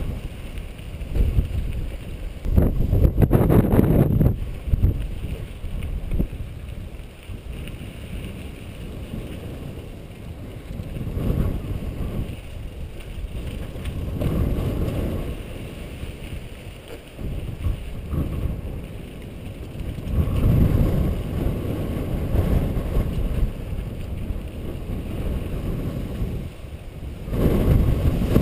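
Wind buffeting the microphone of a camera on a moving mountain bike, a low rushing noise that swells into loud gusts several times, mixed with the rumble of tyres rolling over a dirt and rock trail.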